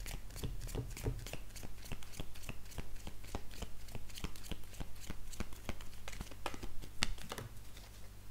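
A deck of oracle cards being shuffled by hand: a quick, irregular run of light clicks and slaps, with a card laid down on the table near the end. A steady low hum runs underneath.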